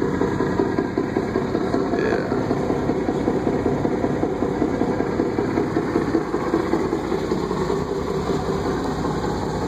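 Pickup truck engine idling steadily with a low, even pulse. A short, faint high chirp comes about two seconds in.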